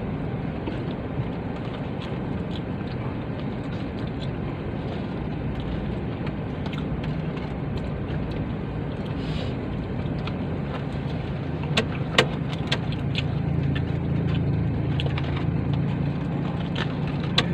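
A car's engine running steadily, heard from inside the closed cabin, as a low hum. A few sharp clicks come a little past the middle.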